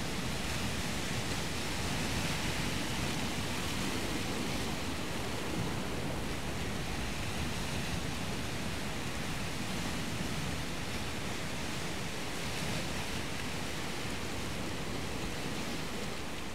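Steady rushing noise of surf along the shore, swelling slightly a couple of times.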